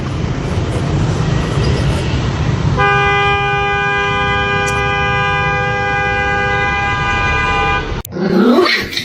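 A vehicle horn held steadily for about five seconds over loud rumbling noise, then cut off. Right after it comes a short call that slides up and down in pitch.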